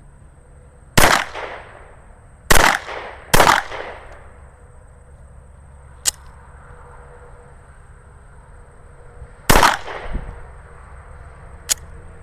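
Glock-pattern pistol firing four shots, each echoing briefly: one about a second in, two in quick succession shortly after, and one more near the end. Two fainter, sharper cracks fall between them.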